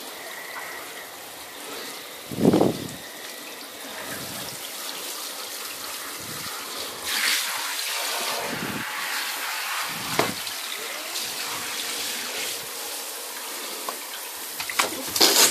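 Handheld shower spray running over a wet cat's fur and splashing into a bathtub, a steady rush of water. A few dull thumps sound through it, the loudest about two and a half seconds in.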